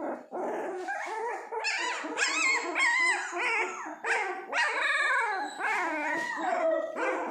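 Young Dalmatian puppies whining and squealing, several high cries overlapping and rising and falling in pitch.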